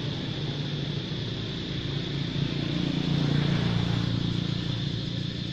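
A motor engine's low, steady drone that swells about three seconds in and then eases off.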